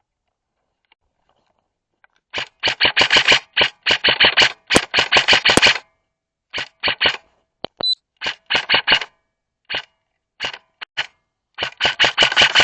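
Airsoft electric rifle firing: after about two seconds of quiet come rapid full-auto bursts, then single shots and short strings, then more bursts near the end. The reports are sharp and light, with no deep boom.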